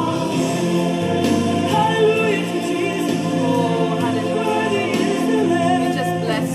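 Gospel worship music: a choir singing sustained, gliding vocal lines over steady held notes.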